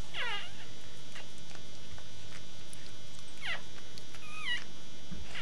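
Newborn puppies squeaking while they nurse: three short, high-pitched whimpers, the first falling in pitch, the other two close together a little past the middle.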